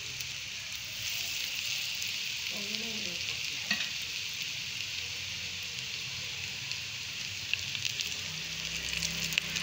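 Breadcrumb-coated potato-and-chicken kababs shallow-frying in hot ghee: a steady sizzle with a few sharp crackles, one about a third of the way in and a couple near the end.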